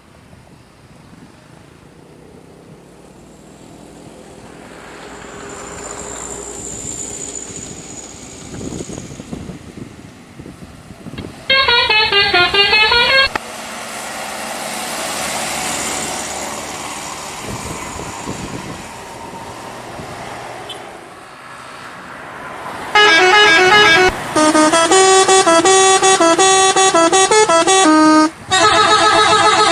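Indonesian 'telolet' bus horns: multi-trumpet musical horns playing a short stepped tune about twelve seconds in, then a louder, longer tune in the last seven seconds with two brief gaps, over the noise of passing road traffic.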